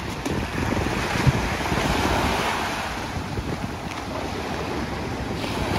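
Surf washing on a Gulf beach, rising to a swell about two seconds in, with wind buffeting the microphone.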